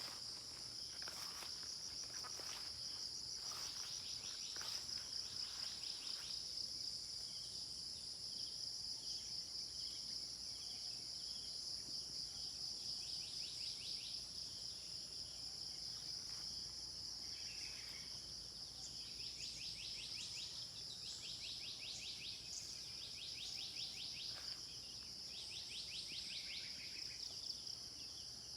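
Steady shrill drone of an insect chorus, with short chirping and trilling calls scattered over it throughout.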